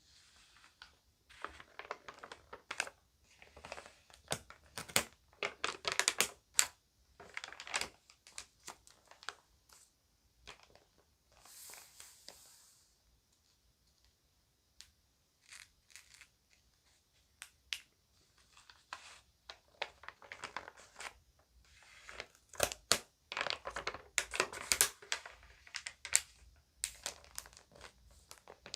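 Magazine pages crinkling and crackling as they are handled and turned, in irregular bursts of sharp crackles with a quieter stretch in the middle.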